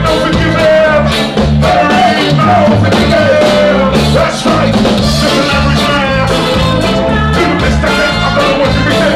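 Live ska band playing, with a male lead vocal sung over electric guitar and bass on a steady beat.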